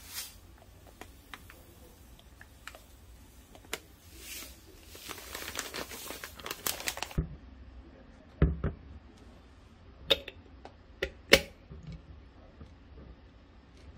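Plastic sugar bag rustling and crinkling for a few seconds as it is emptied and handled. Then comes a low thump, followed by several sharp clicks and knocks as a plastic lid is fitted onto a glass jar.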